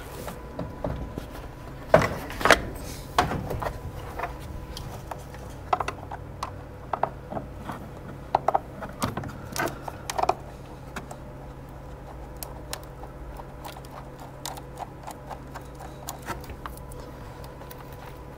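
Flathead screwdriver loosening hose clamps on an intake hose: irregular small clicks and ticks of the clamp screw and metal band, louder and more frequent in the first half, fainter later.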